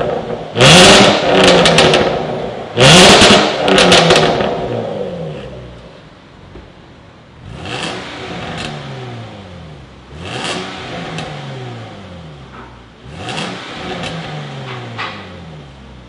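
Jaguar F-Pace 3.0T's supercharged V6 free-revving through a stainless steel catback exhaust: two loud blips with the exhaust valves open, then three much quieter blips with the valves closed. Each rev climbs fast and falls back slowly, with a few pops as it drops.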